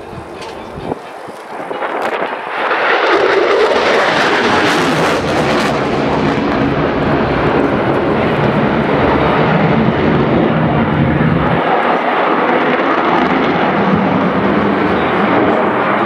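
F-16 fighter jet flying a display pass, its jet engine noise swelling about two to three seconds in and then staying loud and steady.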